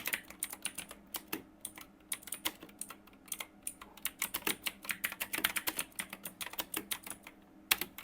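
Typing on a mechanical keyboard: rapid, irregular key clicks, several a second, with a brief pause near the end.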